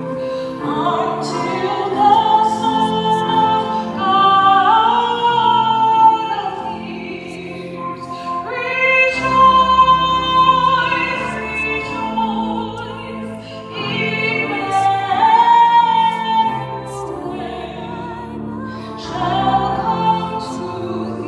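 A woman singing a solo into a handheld microphone, with long held high notes that waver with vibrato, over lower sustained instrumental accompaniment.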